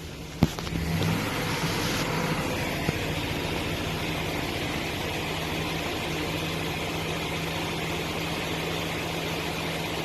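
A vehicle engine idling steadily, with a low hum under a hiss, and a single click about half a second in.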